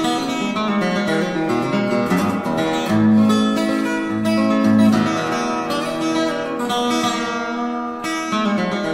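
Solo acoustic guitar music, picked steadily, with low bass notes pulsing under the melody.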